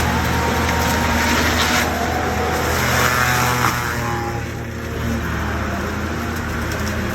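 Cat 320 excavator's diesel engine running steadily under load while its hydraulic brush shredder head spins and grinds through brush. The grinding rasp eases briefly about four and a half seconds in, then picks up again.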